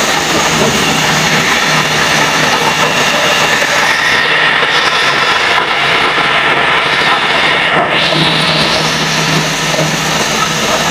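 Woodworking machine running steadily with a loud, even whirring and a constant low hum, while it works a wooden charpai leg.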